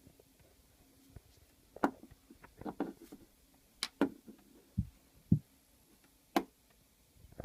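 Scattered sharp clicks and taps, with two duller thumps, from an iPhone 5 being handled during reassembly as the front display is pressed and worked against the phone's frame.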